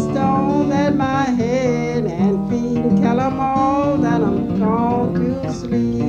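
Folk song recording: an acoustic guitar picked steadily under a sung melody.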